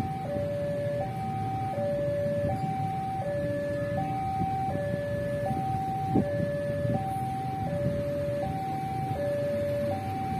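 Railway level-crossing warning alarm sounding a two-tone high-low signal, each tone held about three-quarters of a second and repeating steadily, warning that a train is approaching. Steady road-traffic rumble underneath.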